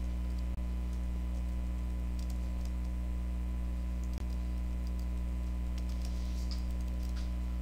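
Computer keyboard typing: scattered, faint key clicks over a steady low hum.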